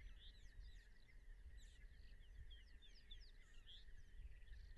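Faint bush ambience: many short bird chirps over a steady high-pitched chorus, with a low rumble underneath.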